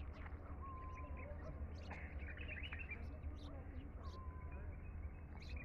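Small birds chirping in short, scattered notes, with two brief level whistled calls about three seconds apart, over a steady low rumble.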